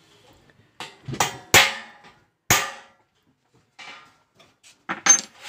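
Hammer strikes on a brass thal being worked by hand: four hard blows in the first two and a half seconds, each with a short metallic ring, then a few lighter taps near the end.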